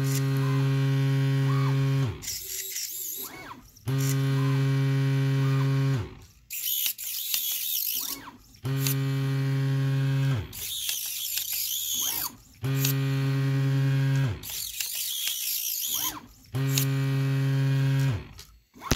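DIY pick-and-place machine running through its pick-and-place cycles: a steady motor hum lasting about two seconds that winds down in falling pitch, alternating with higher, sweeping whirring, repeating about every four seconds, five times.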